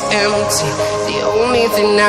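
Electronic background music with a sung vocal line over sustained synth chords and cymbal hits.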